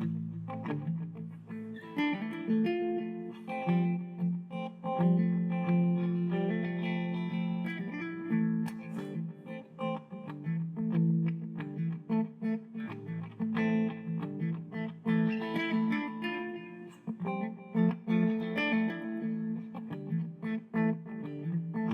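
Background music: a guitar-led instrumental with plucked electric guitar notes over a sustained low line.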